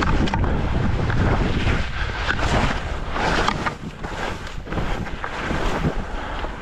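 Wind buffeting the microphone during a downhill ski run, with a hiss of skis on snow surging every second or so.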